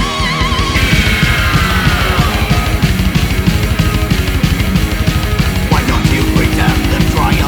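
Fast, aggressive heavy metal with distorted guitars over rapid drumming. A lead guitar wavers with vibrato at the start, then slides down in pitch about a second in.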